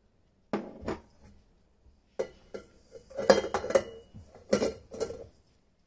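Kitchenware knocking and clinking: a small ceramic bowl and the stainless steel bowl of a stand mixer being handled and set down on the counter and mixer base. Two single knocks come about half a second apart near the start, then a quicker clatter of several knocks in the second half.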